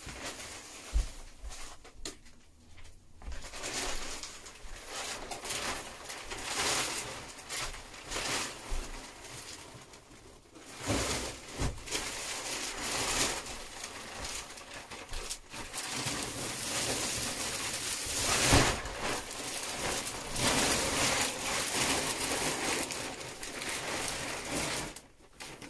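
Thin plastic wrapping film being pulled and gathered off a mattress, rustling and crinkling in irregular bursts, with a couple of soft knocks.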